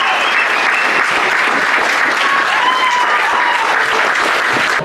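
Stadium crowd applauding a goal, with a few shouts rising over the clapping; it cuts off suddenly near the end.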